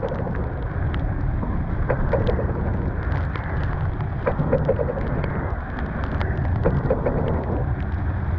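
Storm wind buffeting the microphone with rain, and a scatter of sharp clicks from drops striking the camera and canvas on a sailboat.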